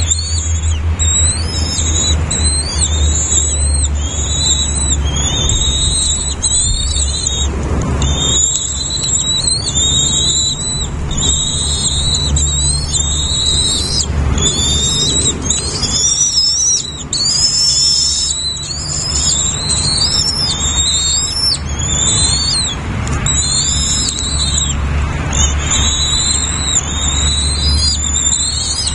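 Nestlings begging for food: a dense run of high, quick, rising chirps repeating without pause, over a steady low rumble.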